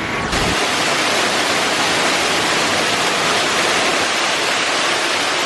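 Steady rush of falling water, like a small waterfall, a loud even hiss that comes in abruptly about half a second in.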